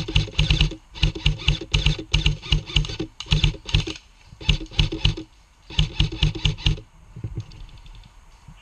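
Airsoft electric gun firing in repeated bursts of rapid clicks, several bursts over the first seven seconds, then stopping.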